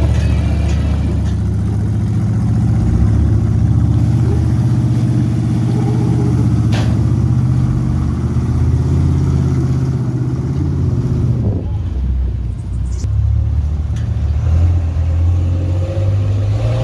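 Rock-crawler engines running under load as the vehicles climb a steep slickrock face, the engine note rising and falling with the throttle. A single sharp knock comes about seven seconds in, and past the middle a different vehicle's engine takes over.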